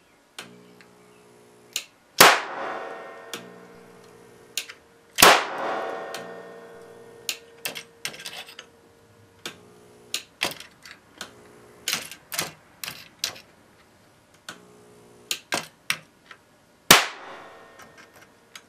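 Sharp cracks of a 6400 V, 70 µF capacitor bank discharging into components on a CRT monitor circuit board. Three loud bangs come about 2, 5 and 17 seconds in, each followed by a ringing decay, with many smaller snaps in between. A buzzing hum comes and goes between the shots.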